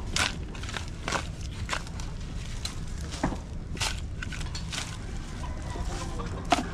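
Irregular sharp crunches and knocks, about one or two a second and loudest near the end, over a steady low rumble.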